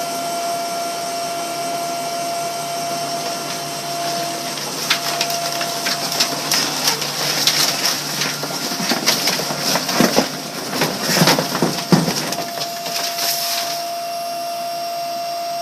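AutoLoad baler running with a steady motor hum. From about five seconds in until about fourteen seconds, crackling and crunching is heard as printer's waste is drawn into the baling chamber and crushed.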